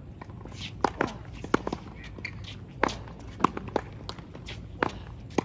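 Tennis ball being struck back and forth with rackets in a volley exchange on a hard court: a string of sharp pops at irregular intervals of about half a second to a second, with shoe steps on the court.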